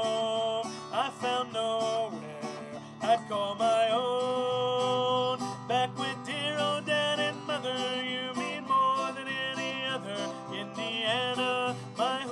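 Man singing a slow country song to his own acoustic guitar, his long held notes sliding up into pitch.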